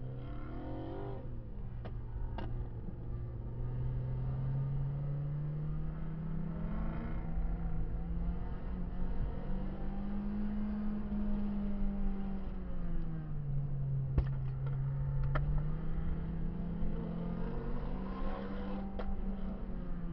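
Renault Clio 16V's sixteen-valve four-cylinder engine under way on track, heard from inside the car, its revs climbing and dropping several times as it accelerates and lifts. A few sharp clicks come through, once early, twice in the middle and once near the end.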